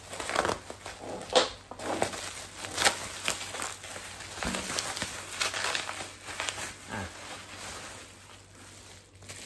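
Bubble wrap and a clear plastic bag crinkling and rustling as they are pulled off by hand, with sharp crackles now and then. It gets quieter near the end.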